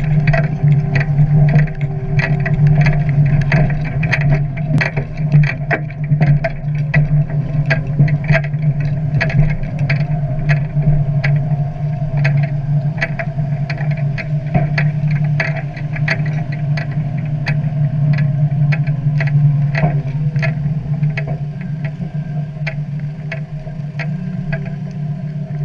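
Deutz-Fahr DX 4.70 tractor's air-cooled four-cylinder turbo engine running steadily, with the McHale C460 straw chopper it carries rattling, giving frequent sharp clicks and knocks several times a second.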